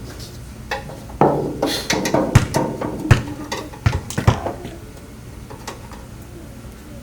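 A quick run of light metallic clinks and knocks over a few seconds, then they stop.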